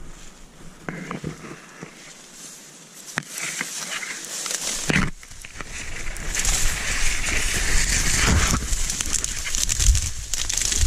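Dry reed stalks rustling and crackling as someone pushes through a dense reed bed, quieter at first and louder from about halfway through.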